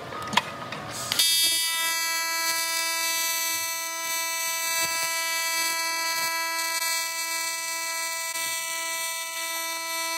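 AC TIG welding arc on aluminum from a Miller Dynasty 280 run at its full 280 amps: a crackle as the arc strikes, then about a second in a steady, high-pitched electric buzz that holds level.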